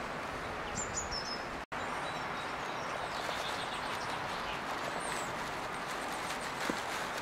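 Woodland ambience: a steady background hiss with scattered thin, high chirps of small birds. The sound drops out completely for an instant about one and a half seconds in.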